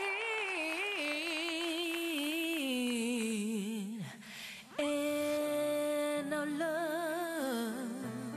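A woman singing a wordless, melismatic vocal line with heavy vibrato, in two long phrases with a short break about four seconds in. Low held accompaniment notes come in about six seconds in.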